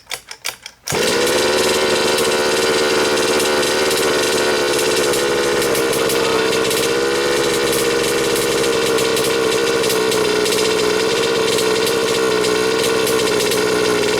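Small two-stroke gasoline engine of an HPI Baja 5B SS large-scale RC buggy: a few uneven pops, then about a second in it comes in loud and runs steadily at an even speed.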